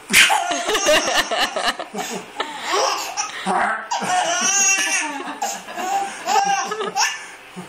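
Hearty, sustained laughter, with high-pitched giggling and belly laughs running almost without a break.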